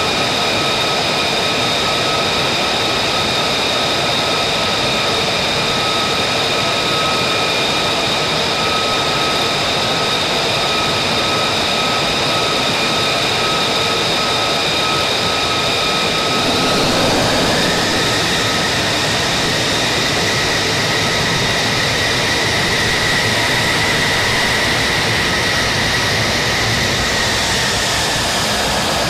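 F-35 Lightning II's Pratt & Whitney F135 turbofan running with a steady high whine over a rush of noise. About halfway through, a new whine tone rises and holds, then falls away again near the end.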